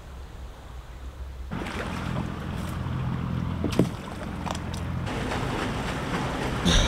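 A boat's engine running steadily on the river, starting about a second and a half in and fading out around five seconds, with water splashing and a few light knocks over it.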